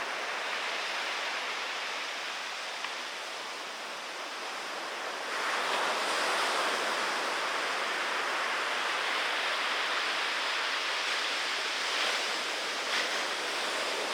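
Pacific surf from typhoon swell: a steady rush of breaking waves that grows louder about five seconds in.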